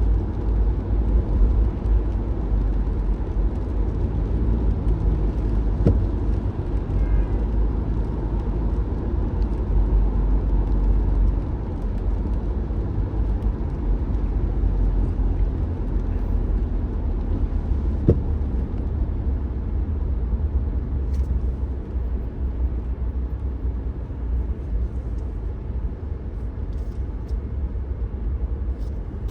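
A car driving, with a steady low rumble of engine and road noise and two brief knocks, one about six seconds in and one about eighteen seconds in.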